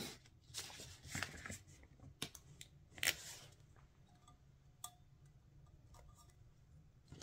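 Faint rustling and crinkling of a vinyl decal sheet as small leopard-spot pieces are peeled off it, with a few short clicks, busiest in the first three seconds; then quieter rubbing of fingers pressing the pieces onto a glittered tumbler.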